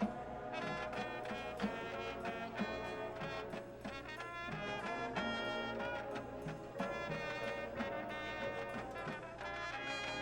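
High school marching band playing, with brass holding chords over regular drum hits.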